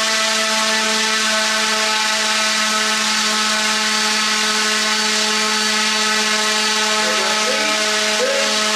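Brushless drone motor spinning a carbon-fibre propeller at a steady speed: a loud, even whine over a low hum, with a few short rising chirps near the end.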